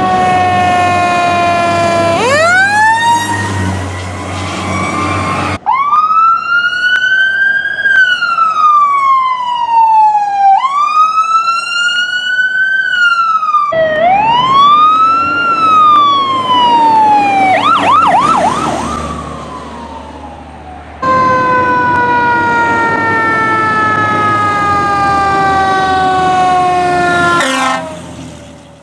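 Fire truck sirens wailing, the pitch sweeping up and sliding slowly down over and over, in several short clips joined by abrupt cuts. Partway through, one siren switches briefly to a fast warbling yelp, and near the end the pitch drops sharply as a truck passes close by.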